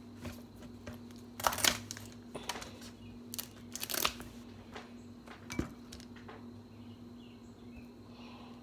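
Scattered crinkling, rustling and light clicks of food and its wrapping being handled while a dish is finished, over a faint steady hum.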